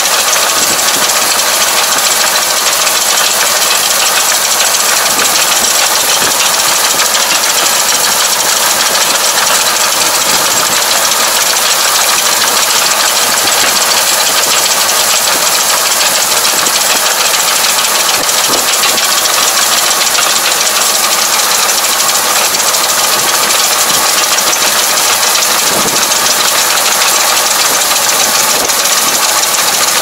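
Kubota KL tractor's diesel engine running steadily as it pulls a twin rotary rake gathering rice straw, under a continuous hiss.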